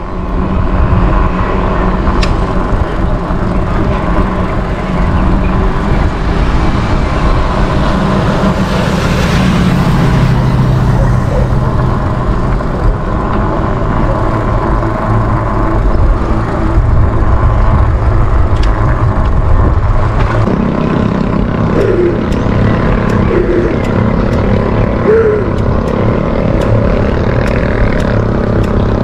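Steady wind noise buffeting an action camera's microphone while cycling, mixed with road noise.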